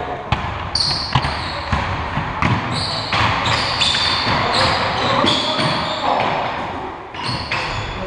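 Basketball game play on an indoor court: the ball bouncing on the floor amid a dozen or so short, high sneaker squeaks on the hardwood.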